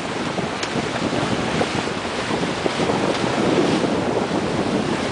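Steady wind noise on the microphone over the rush of water along the hulls of a sailing catamaran under way at speed.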